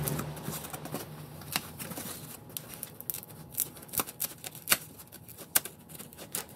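Scissors snipping and cutting through a sheet of polyethylene packing foam: irregular sharp clicks and crackles, about one or two a second.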